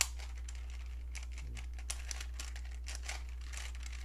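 Plastic layers of a Rubik's 4x4 cube being turned by hand, a run of irregular clicks and rattles, over a steady low hum.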